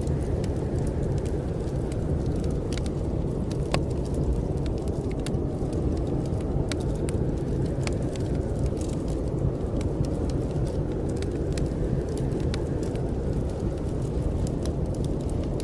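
Snowstorm wind blowing steadily in a low rush, with frequent small pops and crackles from a wood fire burning in a fireplace.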